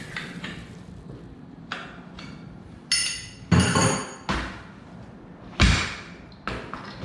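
About seven irregular thumps and metallic clanks, one of them ringing, from a dirt bike tire and rim being forced apart during a tire change.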